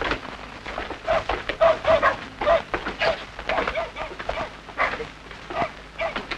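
Dogs barking over and over in short, quick barks, several overlapping.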